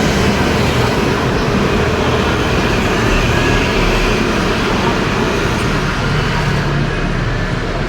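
Steady, loud road traffic noise with a low rumble underneath.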